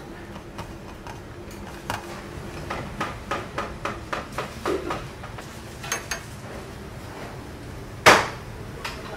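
Commercial kitchen clatter of steel pans and utensils: light metal knocks, about three a second for a couple of seconds, a few sharp clicks, then one loud metallic bang that rings briefly about eight seconds in.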